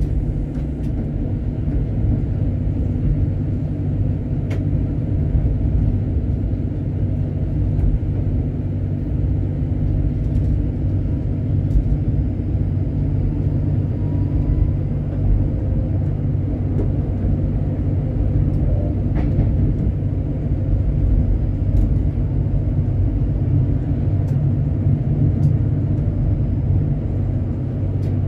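Tram rolling along street track, a steady low rumble with a few faint clicks spread through it.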